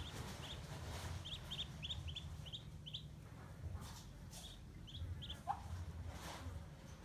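Muscovy ducklings peeping: short high cheeps in quick runs of several a second, over a low steady hum.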